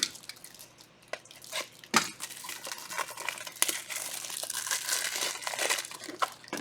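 Plastic wrapping crinkling and tearing as it is handled, with several sharp clicks from things being set down; the crackling is densest and loudest in the second half.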